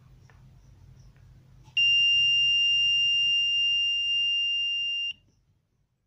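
Piezo buzzer of a 555-timer laser alarm circuit sounding one steady, high-pitched beep for about three seconds, starting sharply about two seconds in and cutting off abruptly. The alarm has been tripped by something blocking the laser beam.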